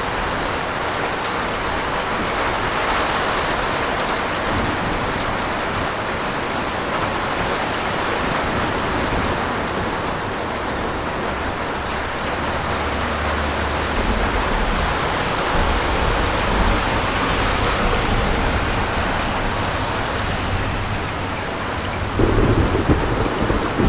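Steady rain falling, with low rolling thunder building about halfway through and a louder, crackling thunderclap near the end.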